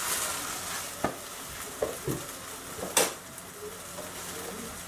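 Mashed potato and ham frying in a pan on a gas hob with a steady sizzle, broken by a few sharp clicks, the loudest about three seconds in.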